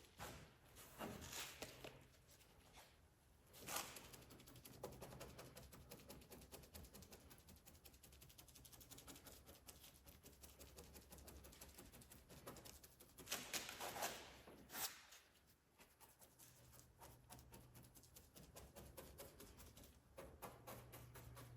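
Mostly near silence with faint, scattered snips and rustles of fiberglass mat being cut with scissors and handled, a little louder about four seconds in and again around thirteen to fifteen seconds.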